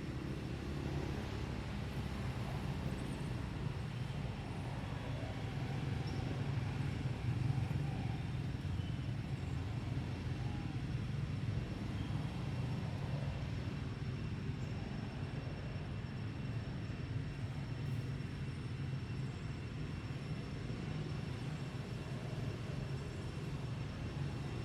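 Steady low rumble of background noise, with a faint steady high whine above it.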